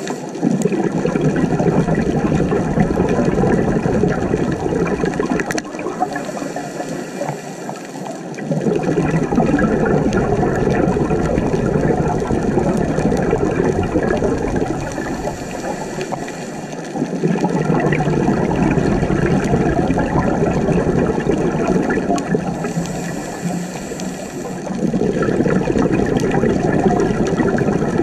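Scuba diver breathing through a regulator: four long stretches of bubbling exhalation, about every eight seconds, each followed by a short high hiss of inhalation.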